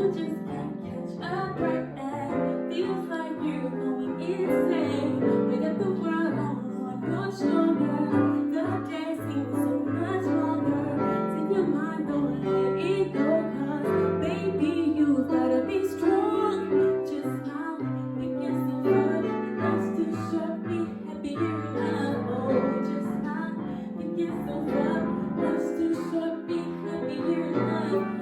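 A woman singing a song over piano accompaniment, with low bass notes changing under it.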